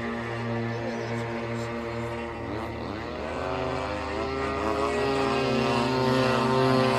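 Two large RC aerobatic planes with Desert Aircraft DA-35 gas engines flying overhead together, their propeller drone wavering in level at first. About halfway through the pitch bends and then settles, and the sound grows louder near the end.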